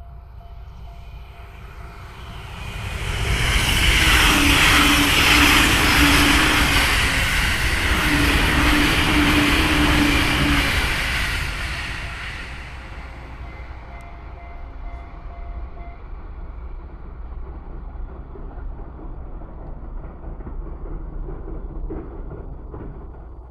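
E259 series Narita Express electric train passing at speed. The rushing rail and wheel noise builds over a couple of seconds, stays loud for about seven seconds, then dies away to a lower rumble.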